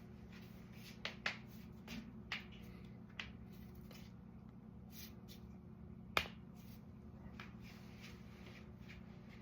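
Joints being cracked by hand: a scatter of sharp pops and clicks, about eight of them, the loudest about six seconds in. A faint steady low hum runs underneath.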